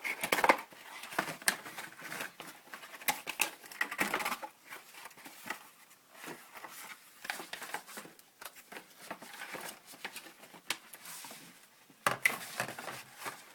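Retail packaging being worked open by hand: irregular crinkling and crackling, with many sharp clicks and snaps.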